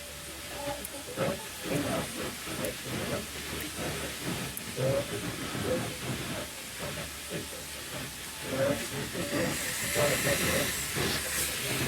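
Food sizzling and bubbling in a skillet: a steady hiss with irregular crackles and pops.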